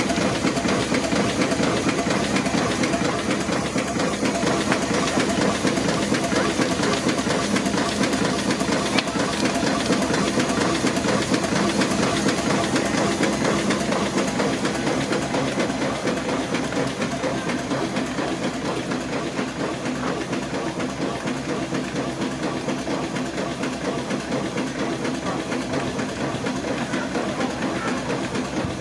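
Steam traction engine running steadily with a continuous hiss of steam.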